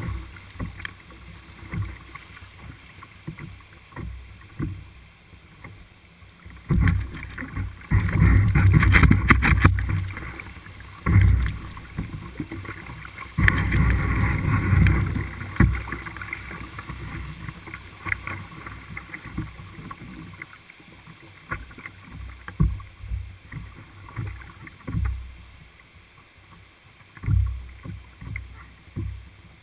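Shallow river rapids rushing and splashing around an open canoe as it runs downstream, with scattered knocks and thumps. There are two louder stretches of splashing and buffeting about eight and fourteen seconds in.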